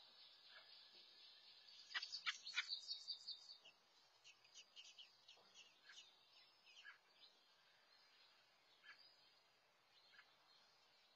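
Faint, high-pitched bird chirping. A thin high hiss comes first, then a quick run of sharp chirps about two seconds in, then scattered single chirps.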